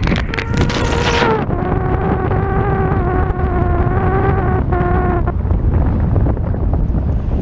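Heavy wind rumble on the microphone of a camera riding loose on the hood of a moving car. Over it a steady whine sounds for about five seconds, dropping a little in pitch a little over a second in.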